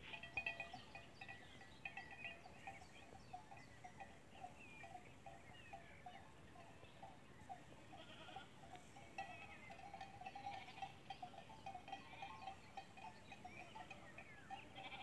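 A flock of goats and sheep heard faintly from a distance, with a steady jingle of many small livestock bells.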